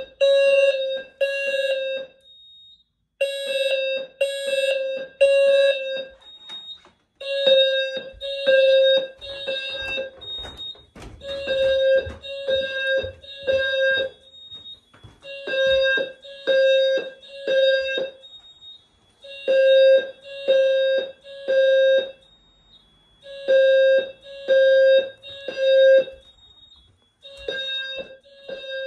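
Simplex 4100ES fire alarm system sounding a low-pitched alarm tone in the temporal-three evacuation pattern: three beeps of about half a second, a pause, and again about every four seconds. A faint steady high whine runs underneath.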